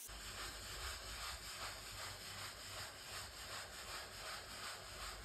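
Damp cellulose sponge rubbing back and forth over fresh epoxy grout and tile, faint, about three strokes a second: the wash-down stage of epoxy grouting. A low hum runs underneath.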